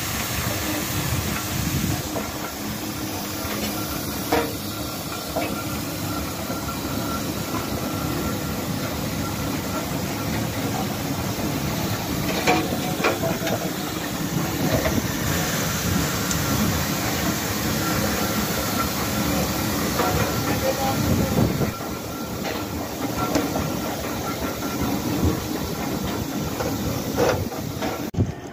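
Steam rollers running close by: a steady hiss of steam with the working noise of the engines, broken by a few sharp metallic knocks.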